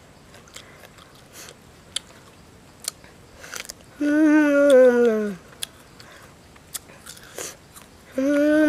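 A boy chewing crisp guava with scattered crunching clicks. Twice he makes a long wordless vocal sound, each about a second and a half long; the first falls in pitch at its end, and the second begins near the end.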